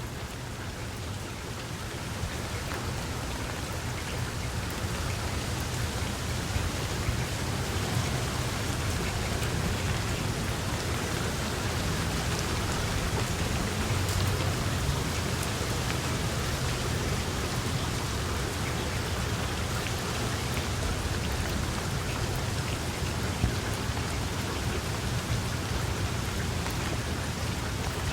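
Steady rain falling, a dense even patter, with a low rumble underneath; it grows a little louder over the first few seconds.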